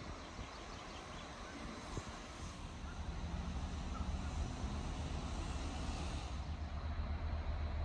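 Steady, choppy low rumble of outdoor ambience, growing louder about three seconds in.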